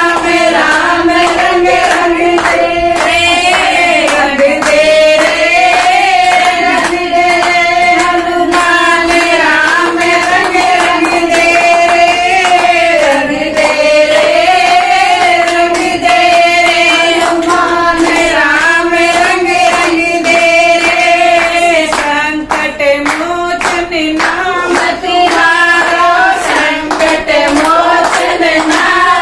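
Group of women singing a Hindi devotional bhajan to Hanuman in unison, with hand clapping keeping the beat.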